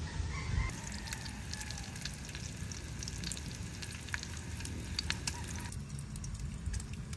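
Bacon frying in a pan on a camp stove: a steady sizzle peppered with fine crackling pops. It starts about a second in and becomes much fainter over the last second or so.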